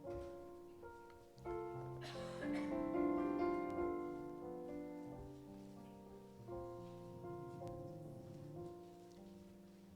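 Instrumental music led by piano, with sustained notes changing from chord to chord.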